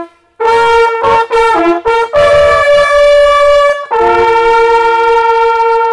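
A group of small coiled hunting horns blown together in a fanfare of changing notes. It ends on one long held note. This is the ceremonial horn-blowing that closes a German driven hunt.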